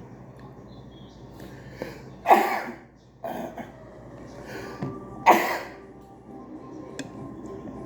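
A person sneezing twice, about three seconds apart, each loud sneeze brief and explosive.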